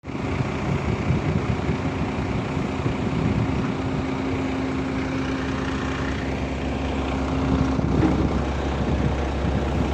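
Excavator's diesel engine running steadily; about eight seconds in its note changes and a deeper low rumble comes up.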